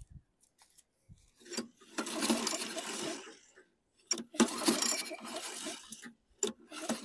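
Toro Recycler mower engine pulled over twice on its recoil starter with the spark plug out and a finger over the plug hole. Each pull lasts a second or two and the engine spins freely: it has no compression.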